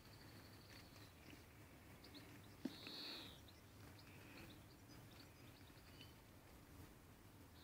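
Near silence: faint background with a few soft, high-pitched chirps and one small click about two and a half seconds in.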